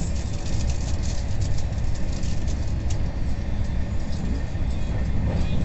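Passenger train coach running at speed, heard from inside: a steady low rumble of wheels on rails with irregular light clicks and rattles from the track.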